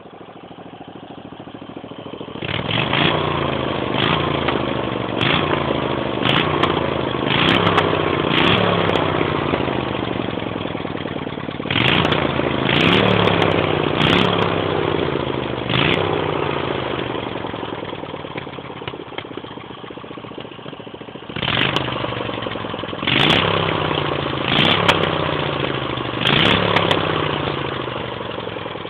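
Mini bike's small engine running and being revved in repeated short blips, the pitch sliding back down toward idle after each one. There is a calmer stretch of near-idle about two-thirds of the way through before the blipping resumes.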